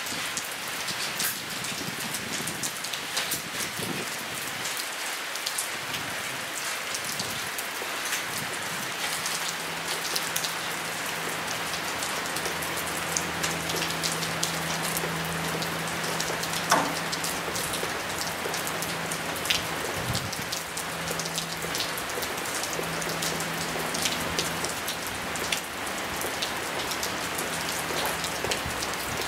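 Steady rain falling on grass, a paved path and puddles, with many close drops ticking sharply through the hiss. A faint low steady hum comes in about a third of the way through.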